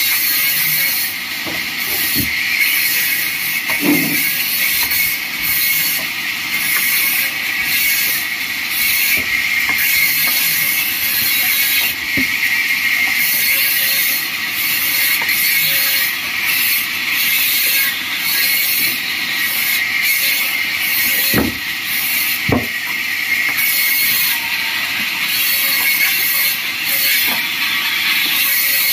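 Vertical bandsaw running and ripping wooden slabs, a steady high hiss and whine from the blade in the wood. A few knocks from boards being handled on the table, two close together a little past the middle.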